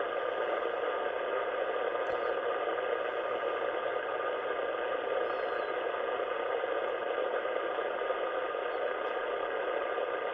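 Ham radio receiver on the 80-metre band giving a steady hiss of noise through its speaker: the wide noise that blankets the whole band, which the operator takes for interference from some local source such as a power supply.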